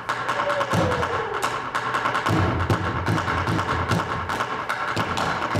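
Percussive music playing for a dance routine: sharp clicking strokes over low thumps about three a second, with a short falling tone about half a second in.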